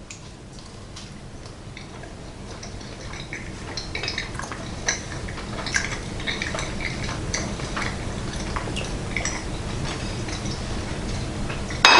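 A person eating a slice of pizza: soft chewing and mouth sounds with scattered small clicks and light clinks of a plate.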